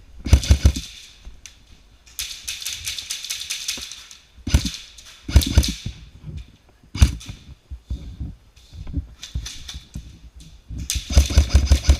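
Airsoft guns firing in rapid clattering bursts, with rustling and knocks from movement between them.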